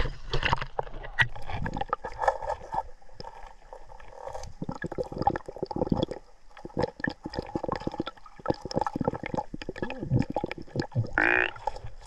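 Underwater sound of a shallow, rocky mountain stream: muffled gurgling of moving water with many irregular clicks and knocks.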